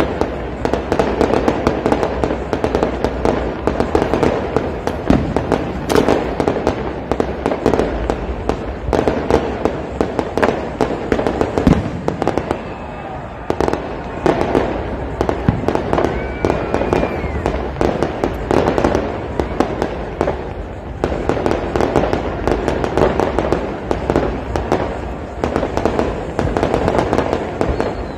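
Fireworks display: a dense, unbroken string of pops and crackles, with louder bangs here and there.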